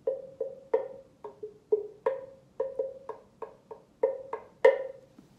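A drum struck about fourteen times in an uneven rhythm, some strikes loud and some soft, each with a short ringing tone.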